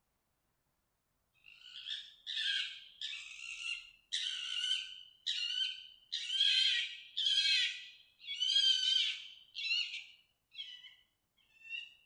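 A fox giving its mating call: a run of about eleven harsh, rasping screams, roughly one a second, starting about a second and a half in and growing fainter near the end.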